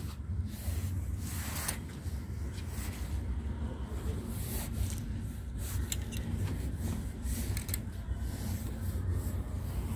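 Clothing being handled on a rack: fabric rubbing and rustling in irregular swishes, with a few short clicks, over a steady low rumble.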